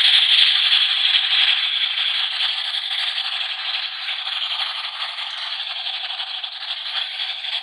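Battery-operated light-up toy gun firing: a steady, dense rattling buzz that starts suddenly, eases slightly, then cuts off.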